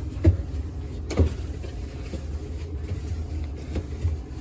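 Paper towel wiping the inside walls of a refrigerator, with a few short knocks of the hand against the walls over a steady low hum.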